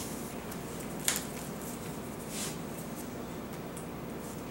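Trading cards being handled on a table: a sharp click about a second in and a soft swish of a card sliding a little later, over a steady room hum.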